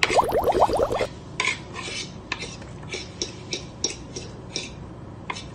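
A loud slurp of hot coffee from a mug lasting about a second, followed by light clicks of spoons and cutlery against plates and bowls, two or three a second.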